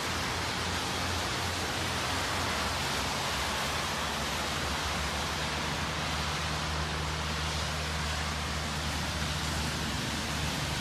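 Heavy rain falling as a steady, even hiss, with no thunderclap, over a low steady hum.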